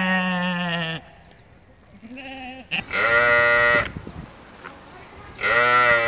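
Sheep bleating in separate calls: a long call that sinks slightly in pitch and ends about a second in, a short faint one at about two seconds, a loud one about three seconds in, and another near the end.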